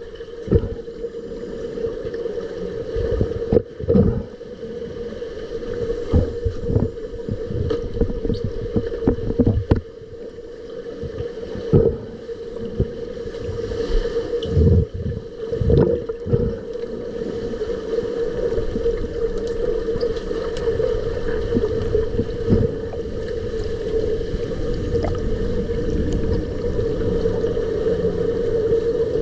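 Underwater sound of a swimming pool heard through a submerged camera: a steady hum over a low water rumble, broken by irregular dull thumps and knocks as finned swimmers kick and grapple.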